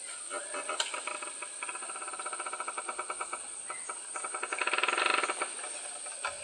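Insects chirring: a steady high-pitched whine under a rapid pulsing trill, which swells briefly about five seconds in.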